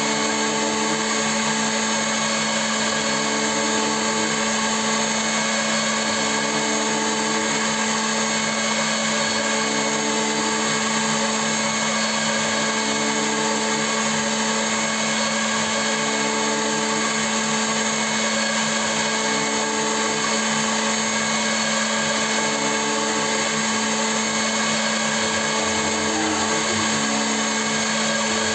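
CNC milling machine running steadily, with a strong continuous hum and whine from its spindle and drives. A faint low sweep comes back every two to three seconds.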